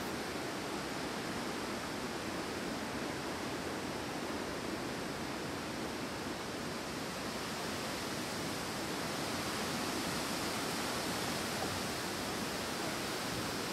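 Wind blowing through forest trees, a steady rushing of leaves and branches that swells slightly about two-thirds of the way through.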